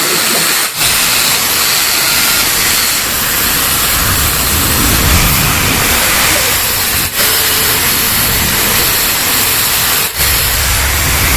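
Steady loud hiss, joined about four seconds in by a low engine rumble that grows much louder near the end.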